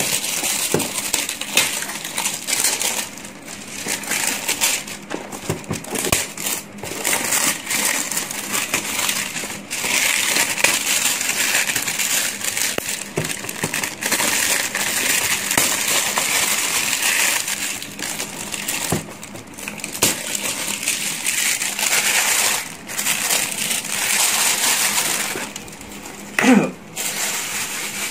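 Thin plastic shrink-wrap being peeled and torn off a cardboard box, crinkling and crackling in long stretches with short pauses between them.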